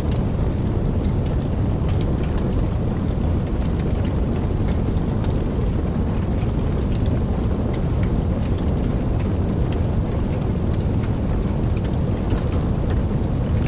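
Campfire burning: a steady low rumble of flame with scattered small crackles and pops throughout.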